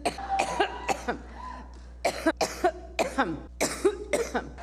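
A woman in a severe coughing fit: a rapid string of short coughs, about a dozen, with a brief break about a second and a half in.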